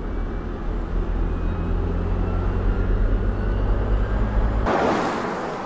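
Mercedes-Benz EQS SUV, a battery-electric car, driving on the road: a steady low rumble of tyres and wind, which changes abruptly near the end to a brighter rushing hiss.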